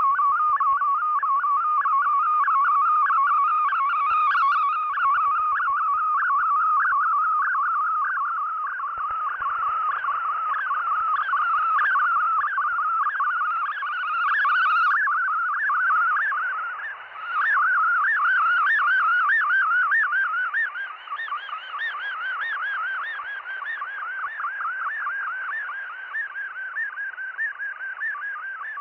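Shortwave digital text-mode data signal (MFSK-type) received on an SDR receiver: a band of warbling tones that hop quickly up and down in pitch, with fading that dips the signal about two-thirds of the way through and leaves it weaker and more uneven after that.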